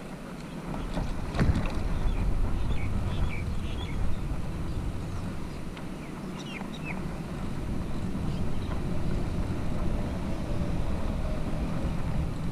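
Wind buffeting a GoPro Hero 5's microphone on the handlebars of a moving bicycle, over a steady low rumble from the tyres on the road. A single knock comes about a second and a half in as the bike rolls over a raised crossing.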